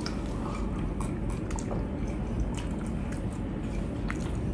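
Close-up drinking sounds: gulps and small wet mouth clicks as a dark drink is swallowed from a glass mug, over a steady low hum.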